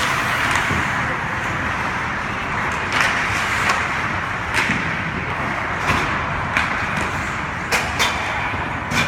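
Hockey game play on a rink: a steady scraping hiss of skates with sharp clacks of sticks and puck every second or so, two close together near the end.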